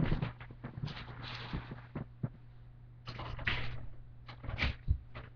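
Handling noise from plastic toy blaster parts being fiddled with: a run of clicks and knocks with rustling, over a steady low electrical hum.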